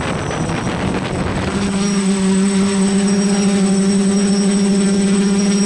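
F450 quadcopter's motors and propellers running. A rough, airy rush gives way about a second and a half in to a steady, even-pitched hum with overtones.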